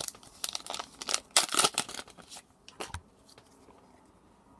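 Foil booster pack wrapper crinkling and tearing open in several short rustling bursts, then a single brief rustle near the three-second mark.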